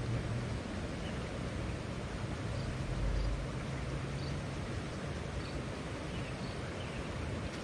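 Steady rushing of a mountain stream, with wind rumbling on the microphone and a few faint high chirps.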